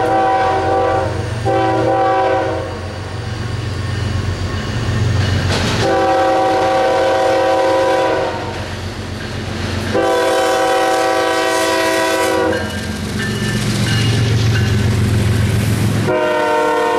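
BNSF diesel freight locomotive's multi-chime air horn sounding five blasts, two short and then two long, with a fifth starting near the end, over the low rumble of the engines as the train comes up and passes. Wheels of the covered hopper cars clack by at the end.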